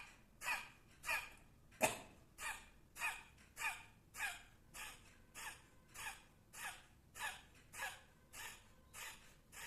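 Kapalbhati breathing: short, forceful exhalations through the nose, about sixteen in a steady rhythm of just under two a second, with the inhales between them unheard. One puff about two seconds in is sharper than the rest.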